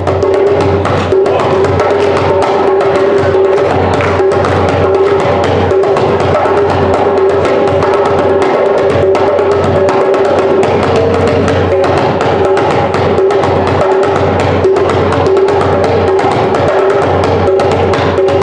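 Hand drum played with bare hands in a fast, busy rhythm of strikes, over a steady held note.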